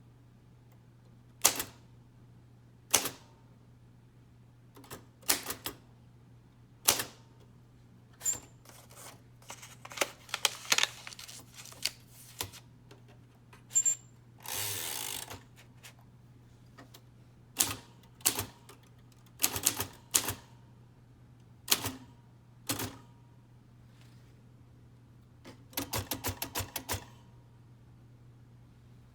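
Royal Quiet DeLuxe manual typewriter, keys struck one at a time with pauses of about a second between them, a short rasping sound about halfway, and a quick run of clicks near the end. A faint steady low hum lies underneath.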